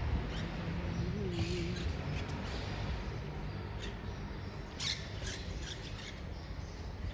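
Outdoor street background noise with scattered short, high, squeaky chirps of birds, the strongest about five seconds in.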